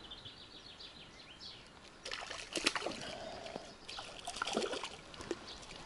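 Faint birdsong, then rustling and clicking from about two seconds in as clothing and a bamboo fishing rod are handled right against the microphone.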